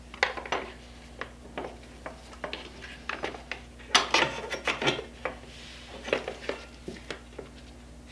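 Irregular knocks, clicks and clinks of a BMW F800GS front sprocket cover being fitted back onto the engine case by hand, busiest about four to five seconds in.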